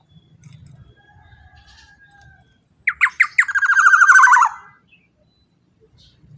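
Black-naped oriole calling: after faint held whistles, a loud harsh call about three seconds in, three sharp falling notes then a rapid rasping series lasting about a second and a half.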